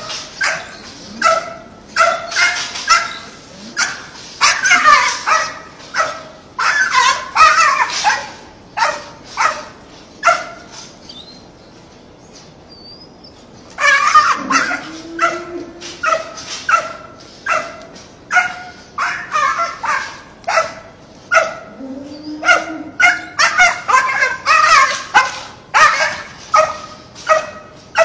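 Small dog barking and yapping in rapid runs of short, sharp barks, stopping for about three seconds near the middle before starting up again.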